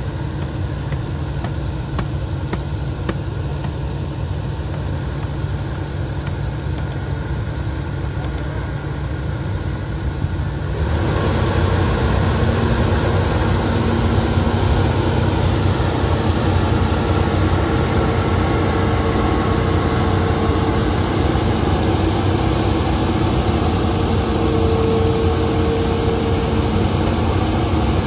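Hitachi Zaxis excavator's diesel engine running steadily, then about eleven seconds in it revs up and runs louder for the rest of the time while the arm is working.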